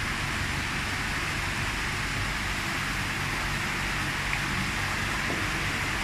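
Water rushing and splashing steadily into a koi pond, with a low steady hum beneath it.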